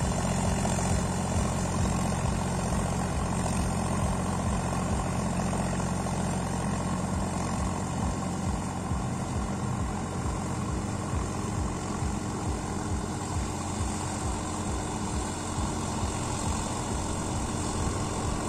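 Sonalika DI 50 RX tractor's three-cylinder diesel engine running steadily as the tractor works through a muddy, waterlogged paddy field, its even low throb fading a little as it moves away.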